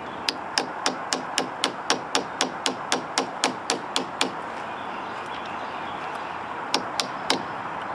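Light, rapid tapping, about four taps a second, driving a small gear onto the shaft of a replacement door lock actuator motor. The taps stop for a couple of seconds and resume near the end.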